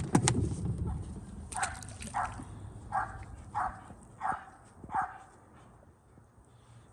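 A sharp knock with a short rumble at the start, then a dog barking six times, roughly once every two-thirds of a second.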